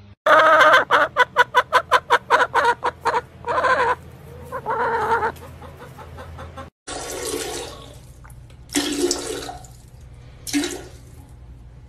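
A chicken clucking close to the microphone: a fast string of about six clucks a second, then a longer call. After a sudden cut, a cat gives a few short, loud cries.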